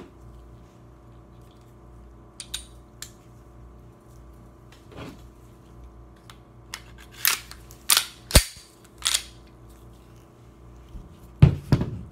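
Taurus G2C 9mm pistol being reassembled by hand, its slide fitted onto the frame and worked: a series of sharp metallic clicks and clacks, a few faint ones first, a cluster about seven to nine seconds in, and the loudest pair near the end.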